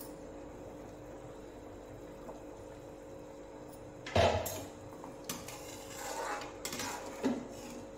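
Steel cookware handling: about four seconds in, a loud clatter as the lid comes off a steel kadhai, then a steel spoon stirring the curry gravy, with a few clinks and scrapes against the pan.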